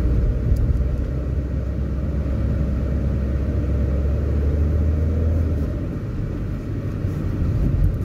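Car driving, heard from inside the cabin with a side window open: steady low road and engine rumble. The deepest hum drops away about three-quarters of the way through.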